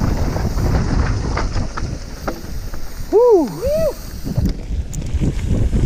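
Mountain bike riding fast downhill: wind buffeting the camera microphone over the rumble and rattle of the tyres on dirt trail and then gravel road. About three seconds in, a rider gives a short two-part whoop that rises and falls in pitch.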